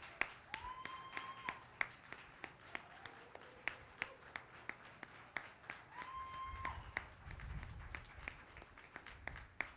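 Faint, scattered clapping, about three claps a second, with two short high-pitched squeaks, one about half a second in and one about six seconds in.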